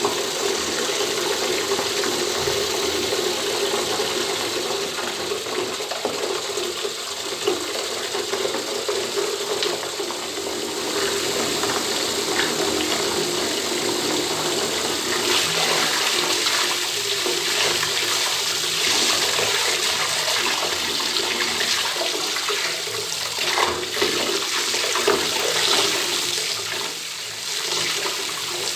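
Bathtub tap left running, water pouring steadily into the tub, a continuous rush that grows a little brighter about halfway through.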